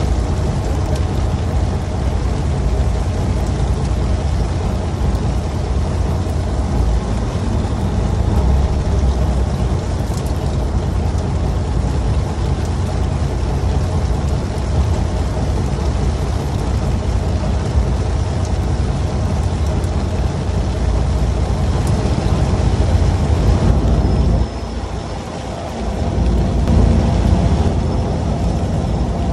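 A fishing boat's engine running steadily, a low hum that drops away briefly about 25 seconds in, with rain pattering on an umbrella overhead.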